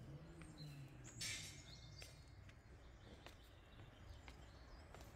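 Near silence: faint outdoor ambience with a few faint bird chirps and a brief rustle a little over a second in.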